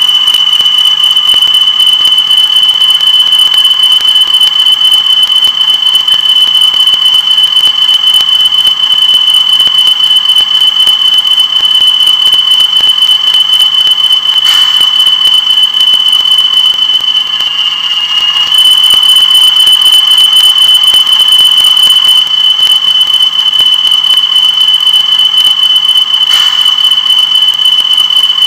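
A steady, loud, high-pitched electronic whine held on one tone from DCC model-railway equipment, with a faint low hum beneath. It dips briefly about two-thirds of the way through, then comes back at full level.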